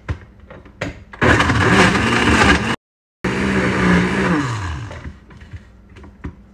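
Countertop blender running, chopping frozen strawberries with liquid and yogurt into a smoothie. It starts about a second in after a couple of clicks, and its motor winds down with a falling pitch to a stop about five seconds in. There is a brief break in the sound midway.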